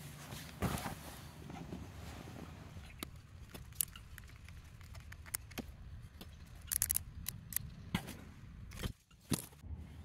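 Faint, scattered clicks and light metal taps of an insulated Allen key working a small bolt and cable lug on a battery bus bar, with a quick cluster of clicks about seven seconds in.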